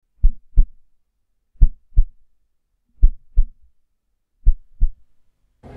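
Heartbeat: four slow double thumps, lub-dub, about one and a half seconds apart, with silence between them.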